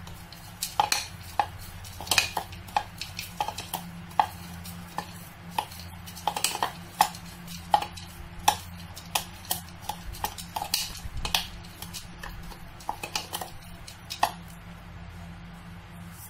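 Metal spoon stirring ground almonds and walnuts with sugar and cinnamon in a bowl: irregular clinks and scrapes of the spoon against the bowl, one to three a second, stopping near the end.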